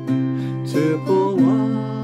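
Acoustic guitar strummed slowly, accompanying a man singing a slow Irish/Scottish folk song.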